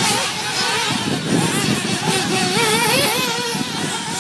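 Small two-stroke glow engines of 1/8-scale nitro RC buggies running around a dirt track, their high pitch rising and falling as the cars accelerate and brake.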